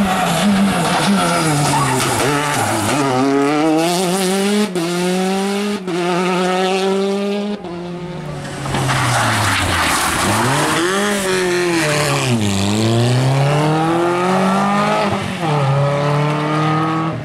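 Rally car engines at full throttle in several short clips, one after another. Each engine's pitch falls as the car slows into a bend, then climbs again through quick gear changes, with brief breaks at the shifts. The first car is a Peugeot 208 T16 rally car and the last a Renault Twingo rally car.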